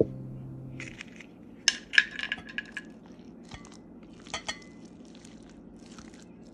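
A silicone spatula mixing raw ground pork and egg in a bowl: soft, wet squishing and scraping with scattered light clinks against the bowl, thickest about two seconds in and again near four and a half seconds.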